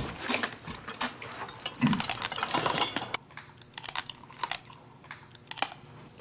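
Table eating sounds: chopsticks and dishes clicking, with biting and sucking at pieces of soy-marinated raw crab. The clicks come thick and fast for about three seconds, then thin out to a few scattered ones.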